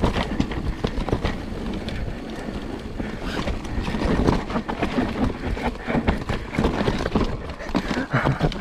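Mountain bike rolling down a rough dirt trail: tyres on dirt and a steady run of irregular rattles and knocks from the bike over bumps, with wind buffeting the microphone.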